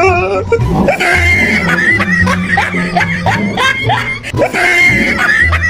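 Comedic background music with a steady bass line and many short rising squeaky glides, mixed with snickering laughter.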